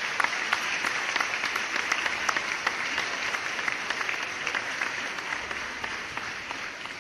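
Crowd applauding, a dense patter of many hands clapping that fades out near the end.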